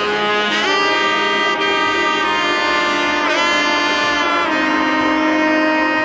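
Background music: a held lead melody with a few sliding notes over sustained chords.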